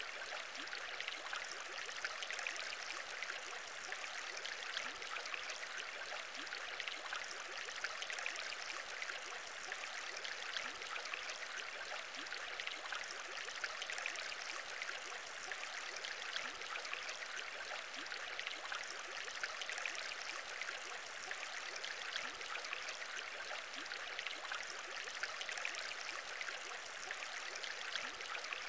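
Steady aquarium bubbling: a continuous stream of small bubbles rising through water, dense with tiny pops and unchanging throughout.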